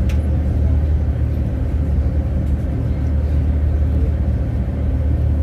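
Steady low engine drone of a Volkswagen Kombi campervan on the move.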